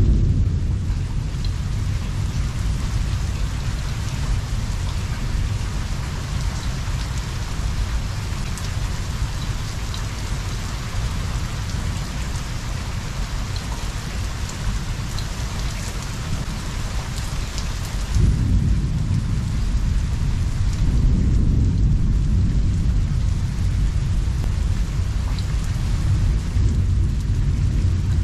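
Heavy rain falling steadily, with thunder rumbling in the background; about two-thirds of the way through a fresh peal of thunder breaks in suddenly and rolls on, swelling again a few seconds later.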